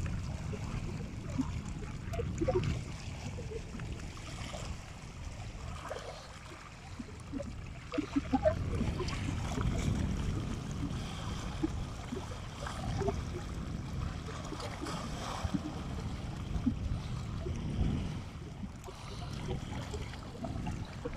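Small waves lapping and splashing against a rocky lakeshore, with wind rumbling on the microphone.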